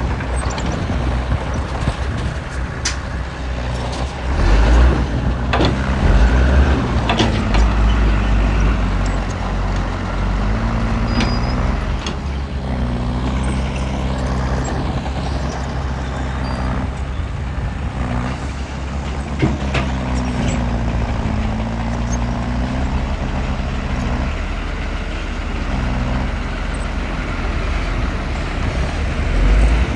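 Heavy diesel engine working, its pitch rising and falling again and again as the load changes, with scattered sharp knocks and clanks.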